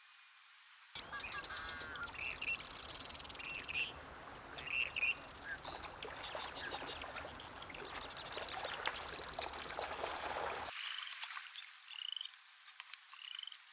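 Wetland ambience: assorted high chirping calls over a steady noisy hiss. The hiss stops about eleven seconds in, leaving a short rising chirp repeated about once a second.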